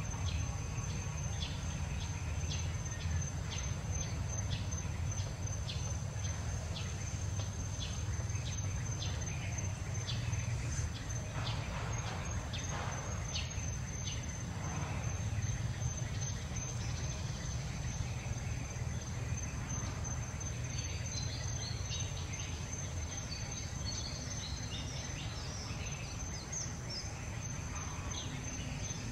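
Outdoor insect ambience: a steady high-pitched insect drone with short regular chirps about twice a second through the first half, over a steady low rumble.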